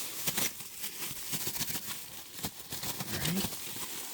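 Bubble wrap and packing tape crinkling and crackling in irregular clicks as the wrapping is cut and pulled off a packed part.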